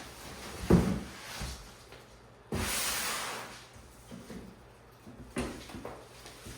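Handling noises from unpacking a boxed car fridge: a thump about a second in, then a sudden rush of rustling noise lasting about a second, like packaging being pulled or slid off, and a few lighter knocks near the end.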